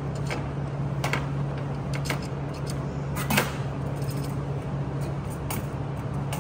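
Scattered metal clicks and clinks from a hand brake-line flaring tool being worked on a copper line, with the loudest knock about three seconds in, over a steady low hum.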